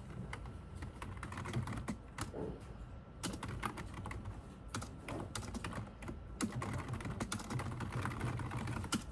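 Rapid, irregular light clicks and taps over a low background hum.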